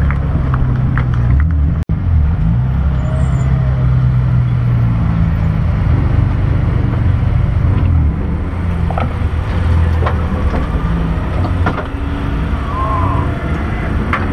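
BMW E30 race car's engine running at low revs with a steady low drone, heard from inside the stripped, roll-caged cabin as the car creeps through the paddock and waits.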